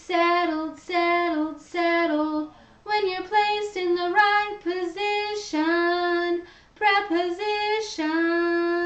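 A woman singing without accompaniment, the words "settled, settled, settled" and then "when you're placed in the right position, preposition," in short phrases that end on one long held note.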